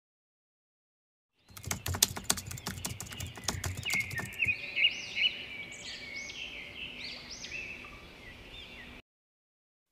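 Rapid keyboard-like clicking starting about a second and a half in, joined after a few seconds by small birds chirping repeatedly; the chirping fades out near the end.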